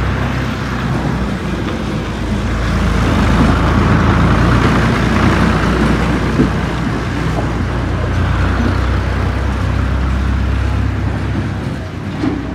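Motor vehicle engine running steadily amid road noise, a low drone under a continuous rushing hiss that swells a little in the middle.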